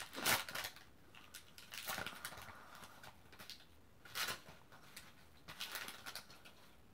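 Foil-lined Magic: The Gathering booster pack wrapper crinkling in a few brief rustles as the cards are pulled out and the empty wrapper is handled.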